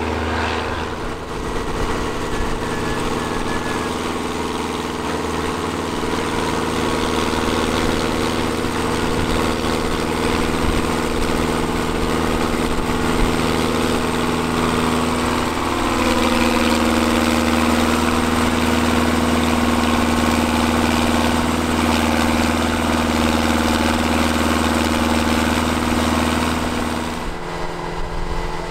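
Engine of a vintage earthmoving machine running steadily, picking up speed about halfway through and dropping back near the end.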